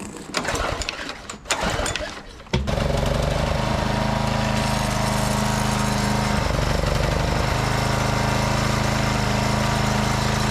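Small gasoline engine of a walk-behind trimmer mower starting: a couple of seconds of uneven cranking noise, then it catches about two and a half seconds in and runs steadily.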